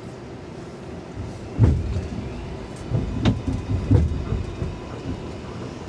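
7 train subway car running, heard from inside the car: a steady low rumble with a run of loud, deep clunks and rattles between about one and a half and four seconds in, the loudest first.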